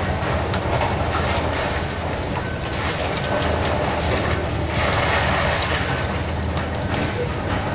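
High-reach demolition excavator's diesel engine running steadily, under a continual rattle and clatter of concrete and debris being broken from the building.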